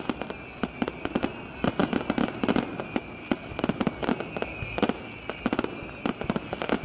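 Aerial fireworks display: shells bursting in rapid, irregular bangs and crackles, many per second, with a thin steady high whistle underneath.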